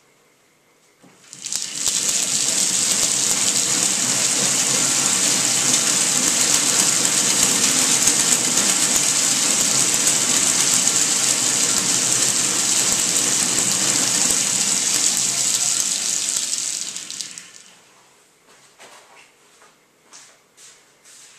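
Bicycle wheel, chain and DC motors spun up by hand-cranking the pedals, running as a homemade generator: a loud, steady whirring rush that starts about a second and a half in and dies away after about sixteen seconds.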